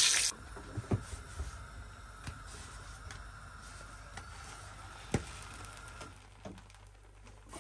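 A loud hiss cuts off abruptly just after the start, leaving a faint steady hum with a few light knocks as burger buns are turned and set down on a flat griddle (tawa).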